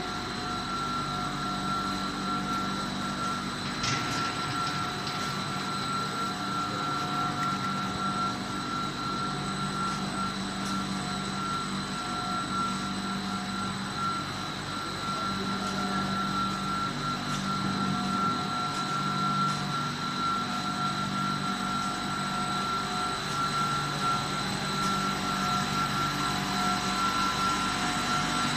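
PVC spike-back anti-slip mat production line running: extruder and roller drive motors giving a steady hum with a constant high whine. A single click about four seconds in.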